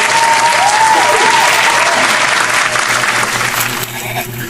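Plastic packaging wrap crinkling and crackling densely as it is pulled off a parcel, stopping abruptly about four seconds in.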